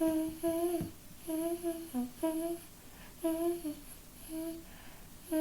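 A woman humming a simple tune in a series of short held notes.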